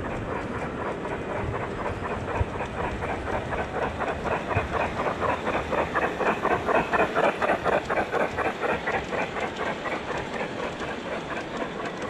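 Garden-scale model steam locomotive's sound unit chuffing in a steady rhythm, getting louder as the locomotive comes alongside and fading after it passes, over the running rumble of model train wheels on the track.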